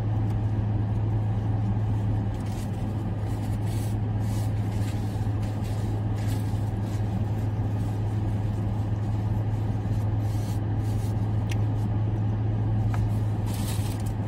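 Steady low hum inside a parked car's cabin from its idling engine and climate fan, with a few soft rustles of a paper napkin and chewing.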